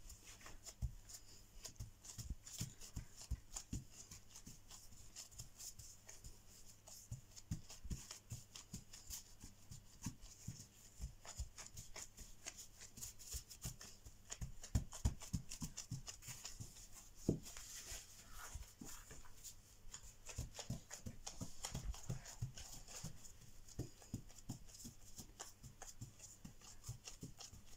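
Gloved hands pressing and patting a log of soft butter dough on a floured table: a quiet run of irregular soft thumps and taps.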